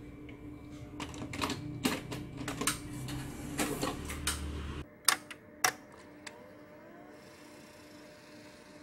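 Panasonic AU-65H M-II VTR taking in a cassette: a run of clicks and mechanical clatter from the cassette slot and loading mechanism, followed by two sharp clicks about five seconds in, over a steady hum.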